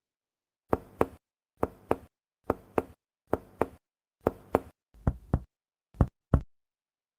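Abdominal percussion: a middle finger tapping twice at a time on a finger laid flat on the belly, seven pairs of short knocks about a second apart. The examiner is mapping dull and tympanic areas to test for shifting dullness, the sign of free fluid (ascites) in the abdomen.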